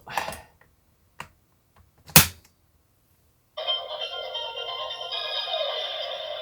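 Two plastic clicks, the second sharp and loud about two seconds in, as a Wonder Ride Book is pushed into the DX Seiken Swordriver toy belt's slot; about three and a half seconds in the belt starts playing its electronic standby tune, which keeps going.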